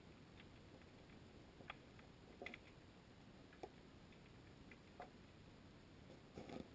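Near silence from a GoPro submerged under the ice, a faint steady hiss broken by a handful of faint, irregular clicks and ticks.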